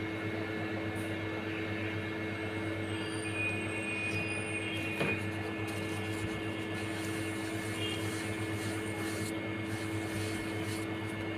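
Electric fan running steadily: a low hum with a faint high whine above it, and one light tick about halfway through.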